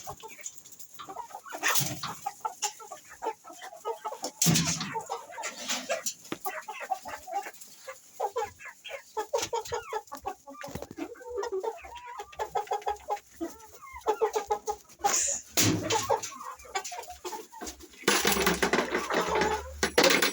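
A flock of domestic chickens clucking, a dense run of short overlapping calls. A few louder, sudden noisy sounds break in, with a longer one of about two seconds near the end.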